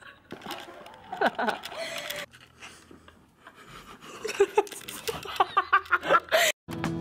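A girl laughing and giggling in bursts, most of all in a quick run in the second half. Near the end it cuts off suddenly and strummed acoustic guitar music begins.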